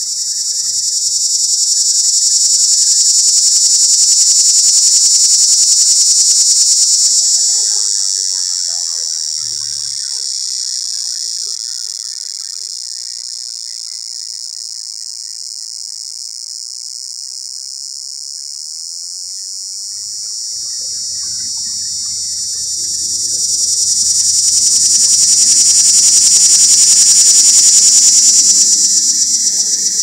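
Cicada's mating call, filmed close up: a loud, high-pitched buzzing drone that swells up a few seconds in, sinks to a softer drone through the middle, and swells again near the end.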